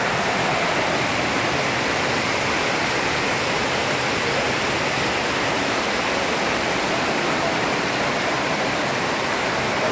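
Ravana Falls, a tall mountain waterfall, rushing in a steady, unbroken roar of falling water.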